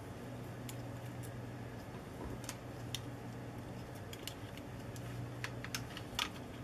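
Faint, irregular small clicks and ticks of a screwdriver and loosened screws working on a cordless phone's plastic case and circuit board. A steady low hum runs underneath.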